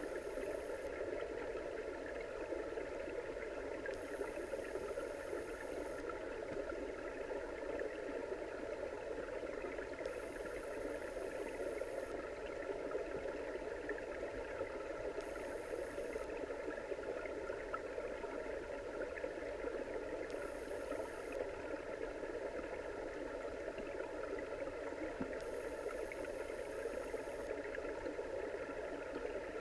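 Steady underwater ambient noise picked up by a GoPro in its waterproof housing: an even, muffled hiss with faint steady tones running through it.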